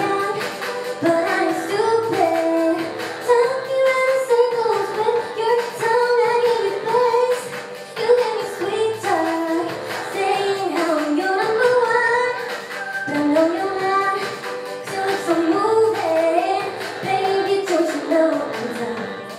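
A young woman singing a pop song live into a handheld microphone, over accompaniment with a steady beat.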